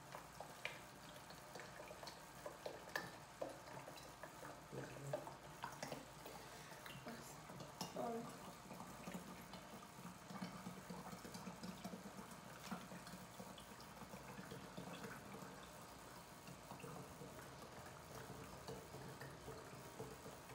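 Vegetable oil being poured from a plastic bottle through a plastic funnel into an empty plastic bottle: a faint trickle, with a scatter of light clicks over the first half.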